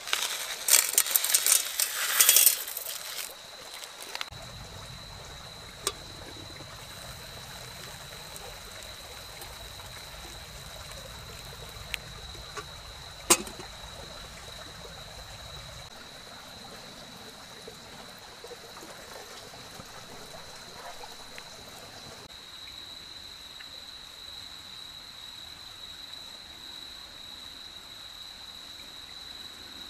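Hot water poured from a kettle over a grilled rice ball in a metal cup to make ochazuke: a steady trickle lasting about ten seconds. It comes after a few seconds of crackly rustling at the start. A thin, steady high tone runs underneath.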